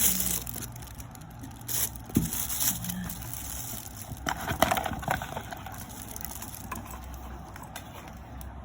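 Packaging of a speaker box being handled and unpacked: intermittent rustling and crinkling with a few light knocks, loudest about four and a half seconds in.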